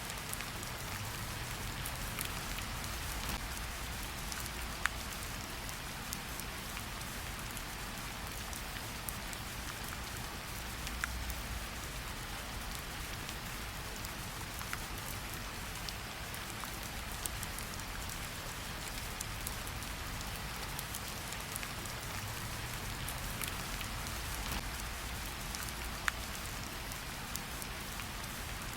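Steady rain falling, an even hiss with a low rumble underneath and now and then a sharper single drop tick.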